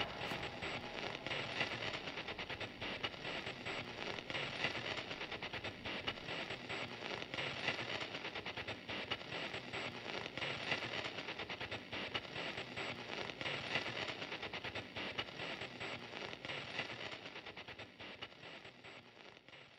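Dense, continuous crackling noise, many small clicks over a hiss, fading out over the last few seconds.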